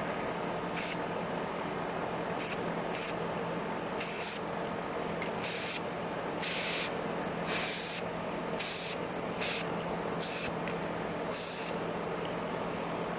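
Aerosol can of gloss black spray paint hissing in about a dozen short bursts, each under a second, as the plastic door handle covers are painted.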